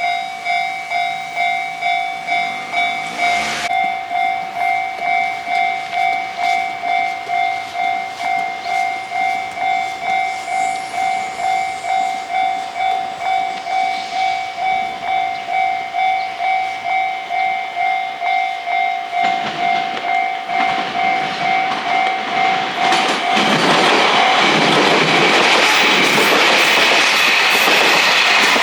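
Japanese level-crossing warning bell ringing a steady electronic ding-ding, about two strokes a second. In the last third a train's running noise and wheel clatter build up and, as it passes, drown out the bell.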